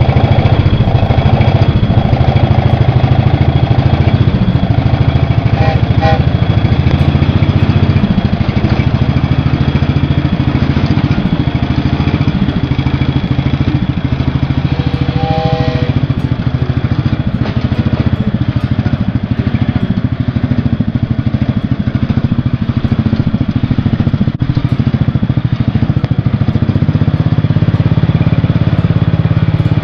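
Cub Cadet garden tractor engine running steadily as it pulls the homemade train and its passenger car, easing off in the middle and picking up again near the end. Short chord-like toots, from the homemade compressed-air train whistle, sound about 6 seconds in and again midway.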